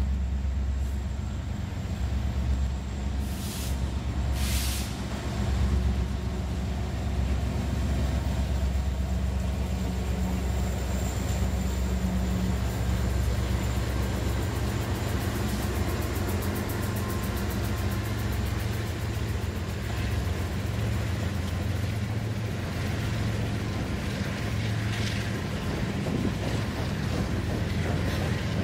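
Freight train diesel locomotives (EMD SD70M-2, GE C40-8W and GE ES44DC) going by, engines running with a steady low drone. Toward the end, loaded covered hopper cars roll past behind them.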